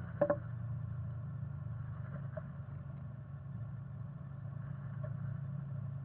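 Steady low hum with a few short scratches and taps as a black-capped chickadee works the moss and fur lining of its nest inside a wooden nest box: a sharp one just after the start, fainter ones about two seconds in and near the end.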